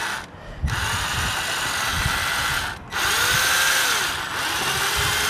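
Power drill running with its bit in the drainage hole of a wooden window frame, reaming out the earth plug that insects have packed into it. It runs in two stretches, stopping briefly a little before three seconds in and then starting again.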